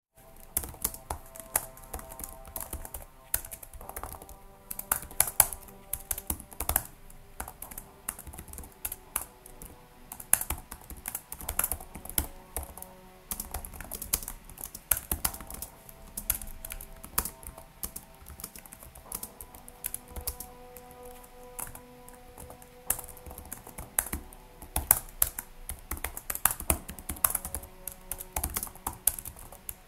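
Typing on a computer keyboard: a steady stream of irregular key clicks, with background music under it.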